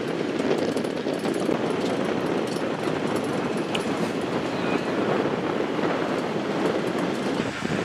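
Pop-top safari vehicle driving: a steady rumble of engine and tyres on the road, with rattling of the vehicle body and wind on the microphone.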